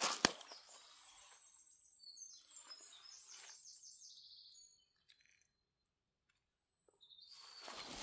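A single sharp click, then a small bird calling with high chirps and a quick trill over a few seconds; after a short near-silent gap, footsteps on the forest floor start again near the end.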